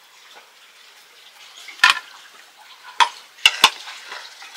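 Metal ladle scooping cooked rice out of a metal pot and clinking against the pot and plate: one sharp clink about two seconds in, then three more in quick succession near the end.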